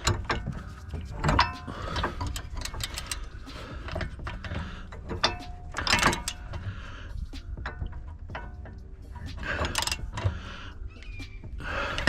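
Hand tools and metal suspension parts clinking and knocking while a car's rear suspension is reassembled, with a few louder clanks about a second in, around six seconds and toward the end.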